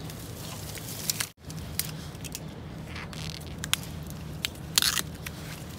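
Dry bamboo stalks, twigs and leaf litter crackling and snapping as gloved hands push through a dense bamboo clump. Scattered sharp snaps, with a louder burst of crackling near the end.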